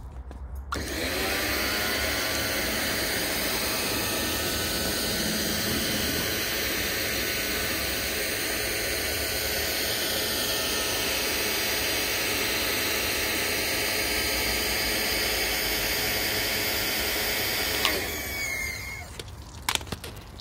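An electric motor starts and spins up about a second in, runs steadily with a whine, then winds down near the end. A couple of knocks follow.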